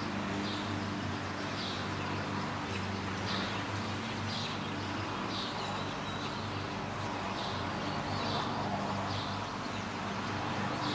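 A bird chirping over and over, about once a second, short high chirps over a steady low hum.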